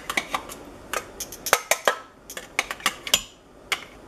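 Metal kitchen tongs tapping and scraping against a small cup and the rim of an Instant Pot's stainless steel inner pot as garlic is knocked out into it: a run of irregular sharp clicks and clinks, one with a short metallic ring about three seconds in.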